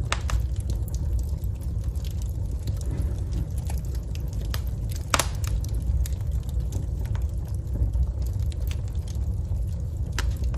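Wood fire burning in a fireplace: a steady low rumble of flames under frequent, irregular crackles and snaps, with sharper pops at the start and about five seconds in.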